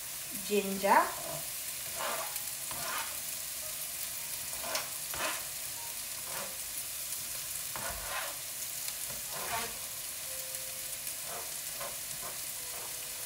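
Vegetables sizzling in hot oil in a frying pan, a steady hiss, with a dozen or so short scrapes and taps of a knife sliding chopped ginger off a plastic cutting board into the pan.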